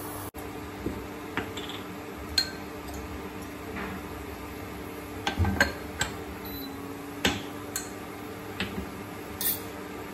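Light clinks and taps of a small metal spoon and glass jars being handled: about a dozen separate sharp knocks spread out, with a quick cluster of them about five and a half seconds in, over a steady low hum.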